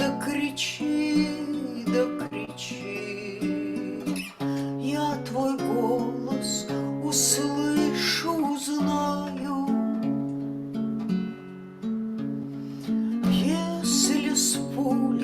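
A woman singing a bard song to her own strummed acoustic guitar.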